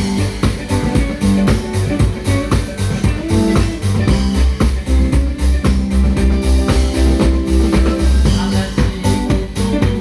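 A band playing live: a drum kit keeps a steady beat under guitar and held bass notes.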